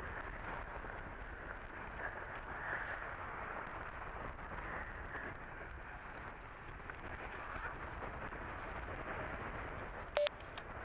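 Wind buffeting the microphone, a steady rushing noise, with one sharp click about ten seconds in.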